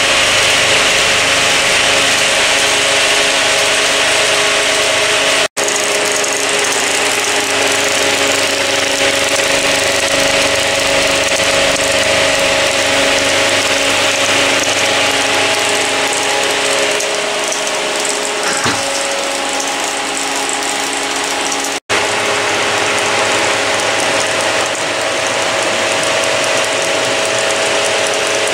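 A Bauer P5 16 mm film projector and motor-driven Nipkow scanning disks running together in a mechanical telecine: a steady, fast mechanical clatter over a constant hum. The sound cuts out for an instant twice.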